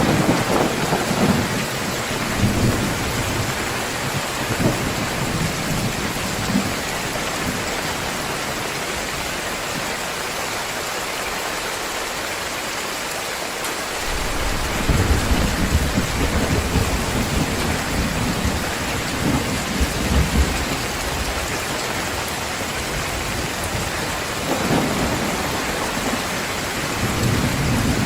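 Heavy rain pouring down steadily during a thunderstorm, with rolls of low thunder rumbling in and out. The thunder eases off for a few seconds in the first half, then rumbles again just past the middle and near the end.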